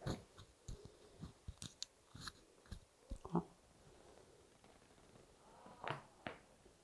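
A string of faint clicks and crunches as a chiropractor settles his hands on a patient's upper back, then two sharper pops close together near the end as he presses in.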